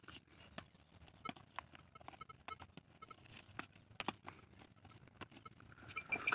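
Hand digging tool scraping and clicking in stony soil: a run of faint, irregular taps and scrapes as earth and small stones are dug out of a hole. A louder rustling swell comes near the end.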